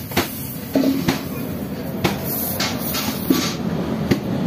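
Hand tools working a puncture in a tubeless car tyre's tread: several sharp clicks and knocks, and a few short rasping strokes from about two seconds in.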